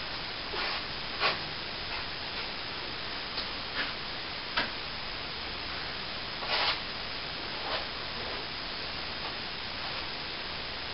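Plastering trowel scraping and tapping as plaster is worked into a ceiling patch: short, irregular strokes, with one longer scrape about six and a half seconds in, over a steady hiss.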